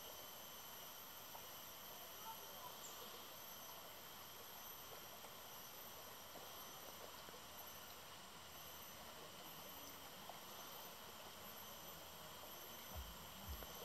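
Near silence: a faint, steady outdoor hiss with thin, high, steady insect buzzing, and a few soft low thumps near the end.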